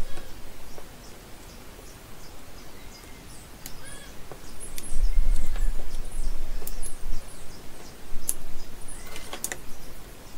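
Light clicks and taps of hand tools against battery cells, over a low rumble that swells about five seconds in, with birds chirping in the background.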